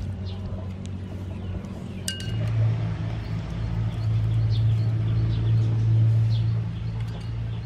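A low steady hum that swells after about two seconds and eases off near the end, with a single metallic clink about two seconds in as the wire-mesh strainer knocks against the bamboo tray.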